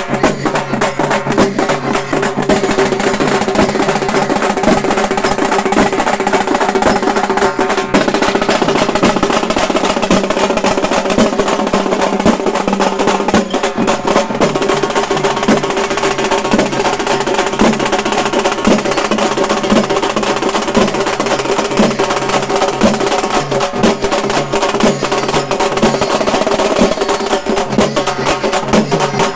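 Halgi frame drums beaten with sticks in a fast, dense, continuous rhythm, loud throughout, over a steady held tone.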